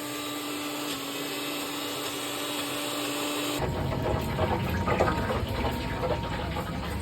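Low-priced countertop blender's motor running with a steady hum, which stops abruptly about three and a half seconds in; a rougher, clattering noise follows.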